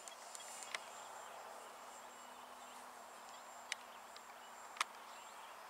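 Faint outdoor background: a steady high-pitched insect drone with a faint low hum under it and a few sharp clicks.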